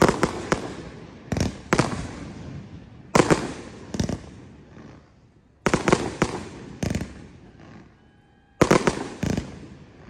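Fireworks display: aerial shells bursting in about ten sharp booms, one every second or so, each trailing off in a long rolling echo.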